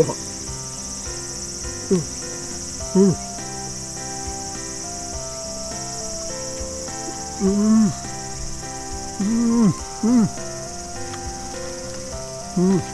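Steady high-pitched insect buzz with soft background music, broken by about six short hummed murmurs from a person who is eating.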